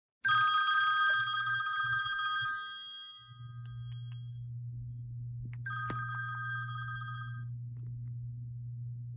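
A smartphone playing ringtone previews through its speaker: a bright bell-like ringtone starts just after the start and fades over a couple of seconds, and a similar ringtone plays again about six seconds in. A steady low hum runs under the second half.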